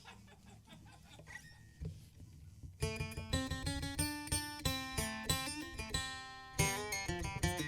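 A guitar picking single notes one after another, each ringing out, starting about three seconds in after a quiet pause. It is the solo intro to a live country song.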